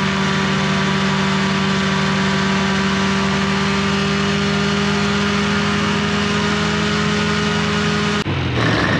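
Ultralight aircraft engine and propeller running at a steady high power setting during a static ground run-up, holding an even pitch. The sound changes abruptly about eight seconds in.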